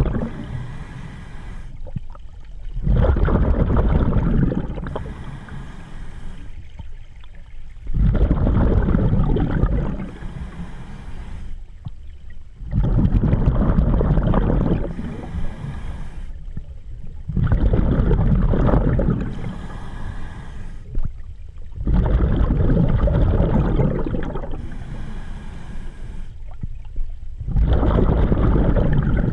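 A scuba diver breathing through the regulator, heard from a head-mounted camera. About one breath every five seconds: each exhale is a loud, bubbling rumble lasting two to three seconds, followed by a short, quieter hiss as he breathes in.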